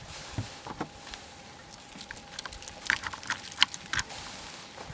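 A few separate light clicks and knocks from hands handling a GHK AKS-74 gas-blowback airsoft rifle, several of them around three to four seconds in. A faint steady thin hum runs underneath.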